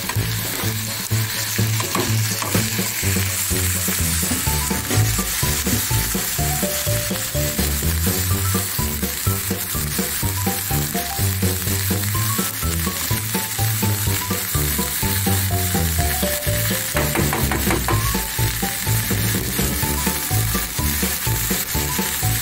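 Lentils and onions sizzling in hot oil in a non-stick frying pan while a spatula stirs them, a steady frying hiss with scraping from the stirring. Background music with a pulsing bass plays under it.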